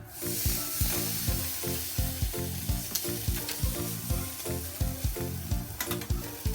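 Food frying in hot oil in a pan: a loud sizzle that starts suddenly at the beginning as the food goes in and keeps going, with rhythmic background music underneath.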